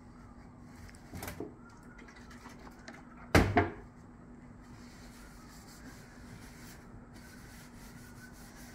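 A sharp knock of something set down on a workbench about three and a half seconds in, after a softer knock about a second in. This is followed by faint rubbing as a rag wipes Danish oil onto a wooden axe handle.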